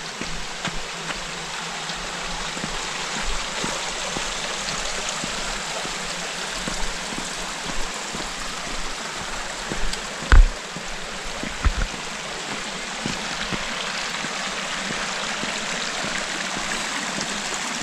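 Steady rush of a shallow mountain stream running over bare rock ledges at the top of a waterfall. Two dull thumps stand out a little past halfway.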